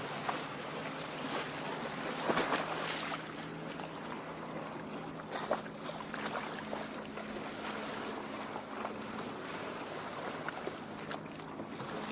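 Small waves lapping and splashing at a lake shore, with a couple of slightly louder splashes about two and five seconds in, over a faint steady low hum.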